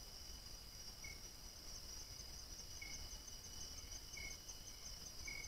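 Night insects calling: a steady high-pitched trill, with short lower chirps repeating about every second.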